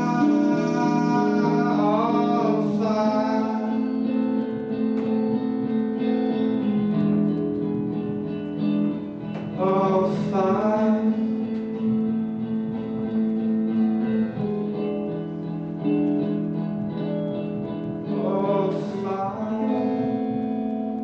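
Live acoustic guitar strummed in steady chords, with a voice singing a few long, wavering phrases over it.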